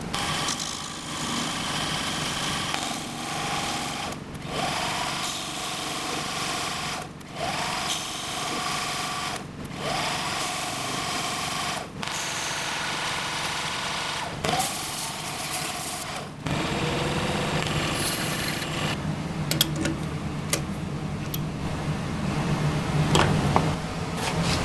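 Small metal lathe running and turning brass round stock, stopping briefly several times, with the motor's whine rising in pitch each time it starts again. About sixteen seconds in it gives way to a bandsaw running with a lower, steady hum, with a few sharp clicks near the end.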